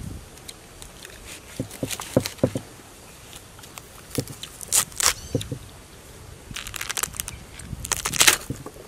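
A knife cutting into a raw palm heart, the crisp fibrous flesh crunching and tearing in a series of short cuts, loudest about five seconds in and near the end.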